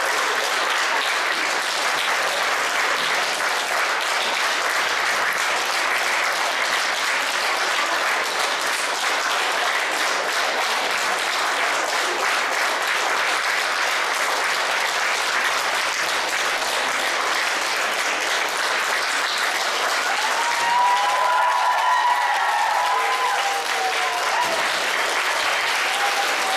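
Audience applauding steadily, dense continuous clapping. Near the end a few voices call out over it.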